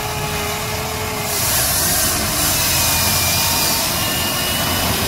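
Huina RC excavator's motors whirring steadily as the arm lowers and the bucket scoops wet mud, growing louder with a hiss from about a second and a half in until near the end.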